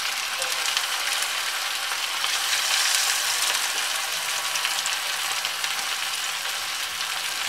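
Breadcrumb-coated dal and rice balls deep-frying in hot oil in a steel kadhai: a steady sizzle with fine crackling.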